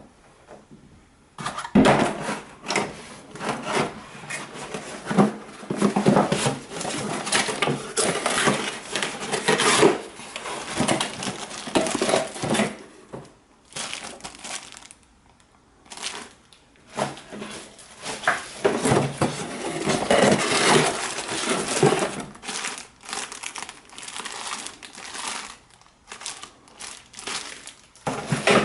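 Plastic packaging crinkling and rustling in irregular bursts, with clicks and knocks of parts being handled and pauses between bursts.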